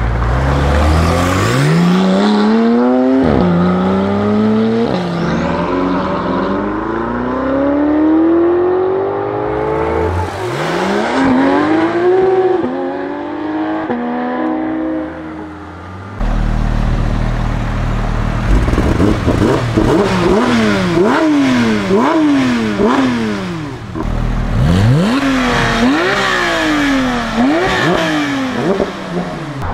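Porsche 911 flat-six engines. For the first half, cars accelerate hard away, the engine pitch climbing through each gear and dropping at every upshift. After about 16 seconds, a parked Porsche GT3 is revved in sharp blips, about one a second.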